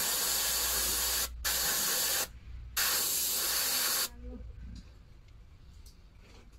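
Airbrush spraying aluminium adhesion primer: three loud hissing bursts of compressed air separated by short pauses, stopping about four seconds in.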